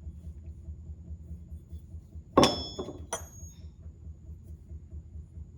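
Two sharp metallic clinks about two-thirds of a second apart, each with a brief high ring, as steel machinist's hand tools are set down and knock against each other.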